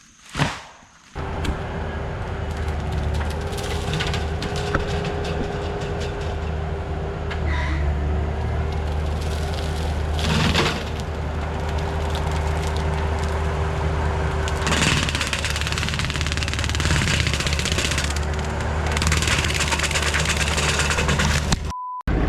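Bobcat skid steer's diesel engine running under load with a steady hydraulic whine, starting about a second in. Several sharp cracks and knocks break through the running, the loudest about halfway through.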